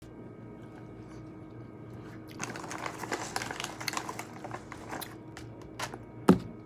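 Crinkling and crunching from about two seconds in, over a low steady hum, ending in a single sharp knock a little after six seconds.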